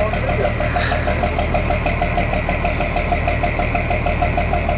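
Small boat's engine running steadily, a low hum with a regular beat about five times a second.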